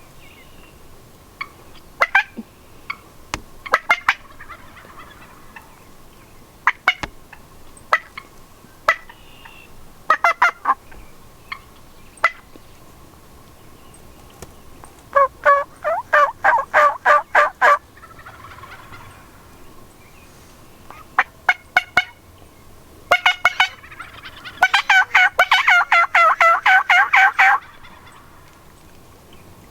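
Turkey yelps and clucks: scattered single sharp clucks, then a run of rapid yelps about halfway through, and a longer, faster, louder series near the end.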